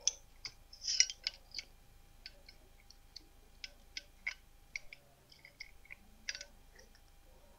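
Hand tube-flaring tool being handled and loosened after flaring a stainless steel tube: light, irregular metal clicks and ticks, a little louder about a second in and again near the six-second mark.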